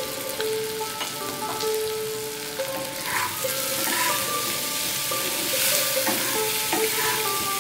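Parboiled elephant foot yam cubes sizzling in hot mustard oil in a non-stick pan. A spatula stirs and scrapes through them several times, with the strokes coming in the second half.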